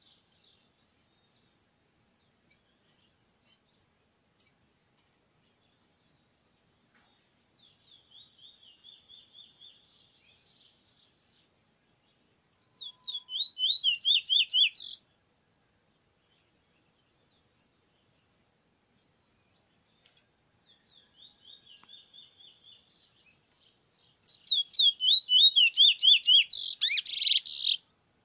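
Caged bullfinch singing: soft, high twittering, broken by two loud phrases of rapid repeated notes, one about halfway through and a longer one near the end.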